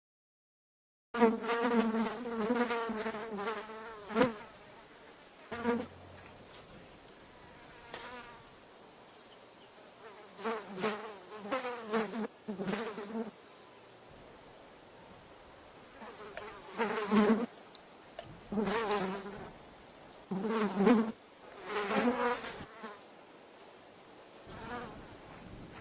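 A fly buzzing in flight: a wavering hum that swells and fades in repeated bouts as the fly passes close, with quieter stretches between them. The first second is silent.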